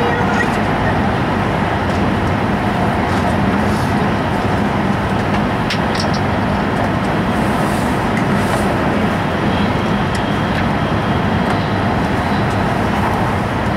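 Steady running noise of an E5 series Shinkansen at speed, heard from inside the passenger cabin: an even, unbroken rush with a few faint clicks about halfway through.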